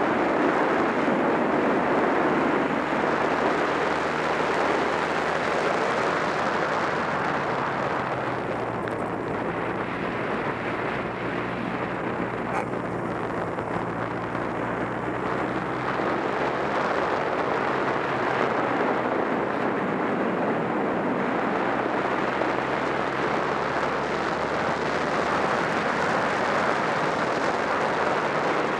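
A Honda Rebel 250's small air-cooled parallel-twin engine runs at road speed under a steady rush of wind noise. The sound eases a little in the middle, then builds again as the bike picks up.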